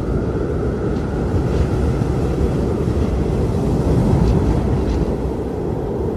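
Strong wind blowing in a steady low rush, with gusts swelling slightly about four seconds in.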